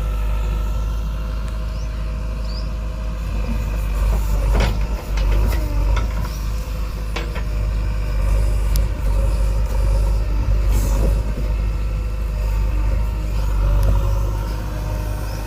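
JCB 3DX backhoe loader's diesel engine running loud and low, swelling and easing as it works, with a few sharp knocks partway through.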